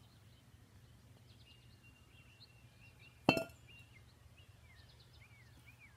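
A single sharp clink about three seconds in, a baseball bat knocked against a concrete driveway, with faint bird chirps throughout.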